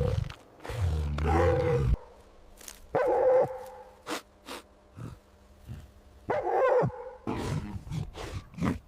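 Dog barking: three loud calls about one, three and six and a half seconds in, with shorter, quieter sounds between them.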